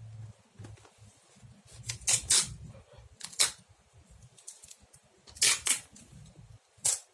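Scissors snipping: about six short, sharp cuts, some in quick pairs, through a taped sponge, with light handling rustle between.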